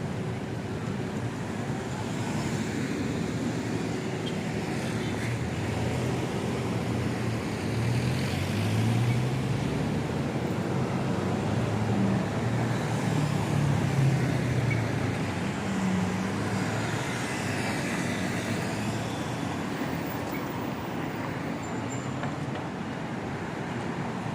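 Road traffic: motor vehicles running past in a steady hum of road noise that swells for several seconds midway as vehicles go by.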